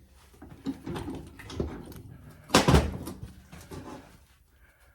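Metal clunks and knocks as the parts of a VW Beetle pedal assembly are worked apart, the clutch pedal being freed from its shaft; several separate knocks, the loudest about two and a half seconds in.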